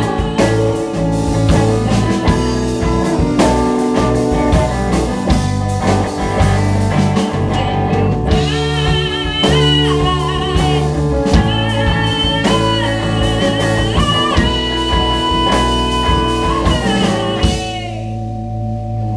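Live band performing: a woman sings into a microphone over electric guitar and electric bass. Near the end the voice and guitar drop out, leaving a low held note ringing.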